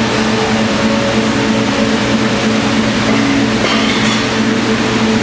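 Steady mechanical hum of ventilation or air-conditioning, a constant drone with several held tones. A short, higher hiss comes a little under four seconds in.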